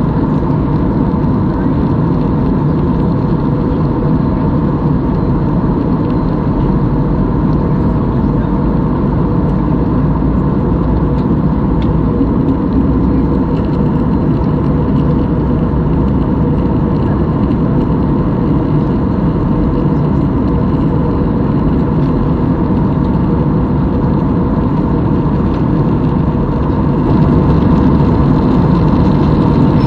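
Steady cabin drone of a jet airliner in flight, heard inside the cabin: engine and airflow noise with a few faint steady tones over it. It gets a little louder near the end.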